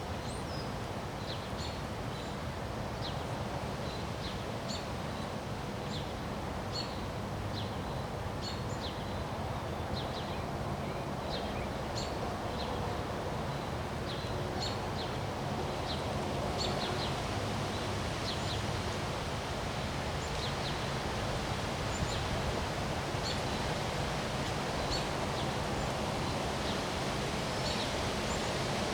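Steady wind blowing, with small birds chirping in short calls every second or so.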